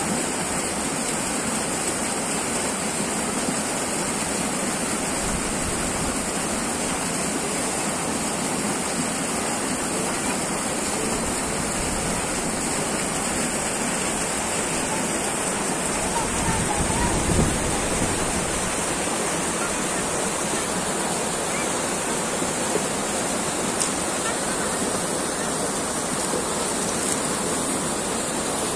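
Fast, shallow, muddy river water rushing and churning over rocks, a steady, unbroken noise.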